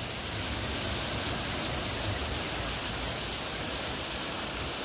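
Steady heavy rain falling, an even hiss that holds without change.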